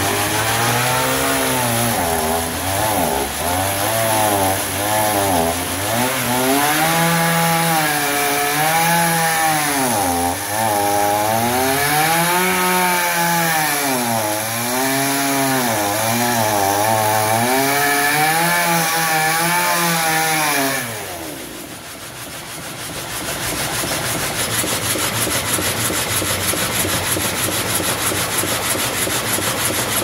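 Gasoline chainsaw cutting a log lengthwise, its engine pitch rising and falling over and over as the chain digs into the wood and eases off. About 21 seconds in the chainsaw stops, and a steady even rasping saw sound from the sawmill machinery carries on.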